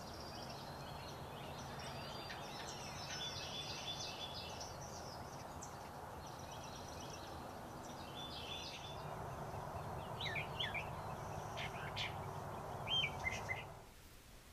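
Songbirds chirping and trilling on and off over a steady low background noise, with a brief louder cluster of calls near the end.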